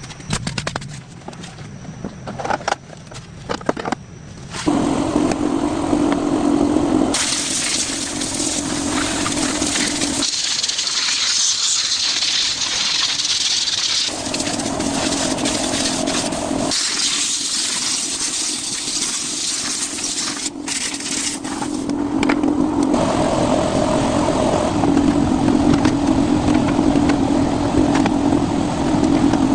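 Scattered clicks and knocks for the first few seconds. Then a car engine runs, in a string of abruptly cut segments, with stretches of loud hiss-like noise between them.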